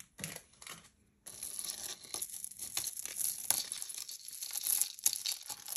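Plastic packaging crinkling and rustling as it is handled and pulled open: a short burst, a brief pause, then steady irregular crackling for about four seconds.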